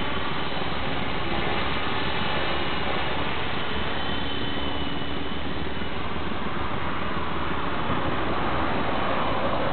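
450-size RC helicopter flying: a steady rotor and motor hum, with a faint high whine that fades a few seconds in.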